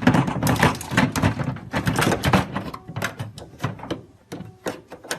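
A dehumidifier being handled: a quick, irregular run of knocks, clicks and rattles from its housing and parts.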